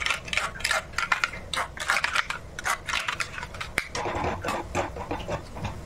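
A steel spoon stirring thick curd-and-spice paste in a steel bowl, making quick irregular clinks and scrapes against the side of the bowl. After about four seconds the clinks give way to a softer rustle.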